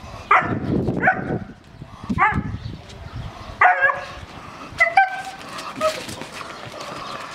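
Seven-month-old German Shepherd giving about six short, high-pitched barks and yips, roughly one a second, while it plays on its leash.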